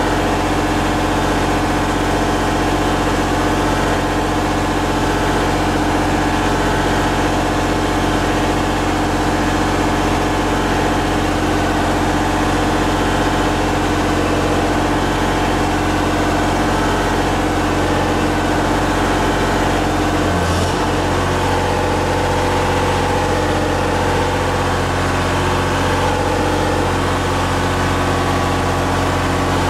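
Miller 400D welder generator's diesel engine running steadily under light load. About two-thirds of the way through, its note changes suddenly as the starting surge of a 4-ton air conditioner compressor, close to 80 amps, loads it.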